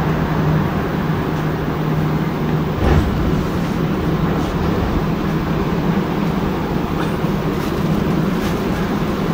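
Rubber-tyred Montreal Metro Azur train running: a steady rumble with a low hum and a single thump about three seconds in.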